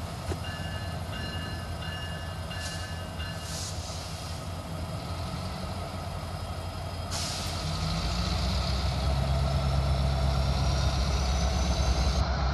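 A freight train's diesel locomotive engines idling with a steady low rumble while the train stands in the yard. Short high beeps repeat over the first few seconds. About seven seconds in, a hiss and a slowly rising high whine begin, and the engine sound grows louder.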